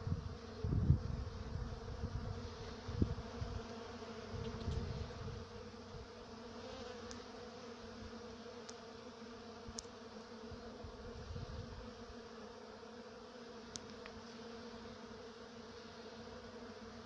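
Honeybees buzzing steadily as they forage for nectar on the elm blossoms, an even hum. Low thumps and rumbles in the first few seconds are louder than the buzzing.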